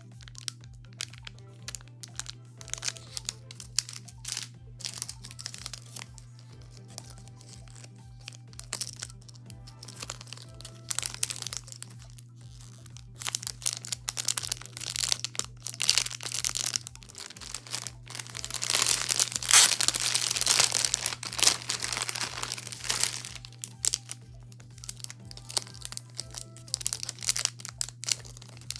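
Clear plastic bags crinkling and crackling as squishy toys in their packaging are handled and turned over, loudest for a few seconds about two-thirds of the way through. Background music and a steady low hum run underneath.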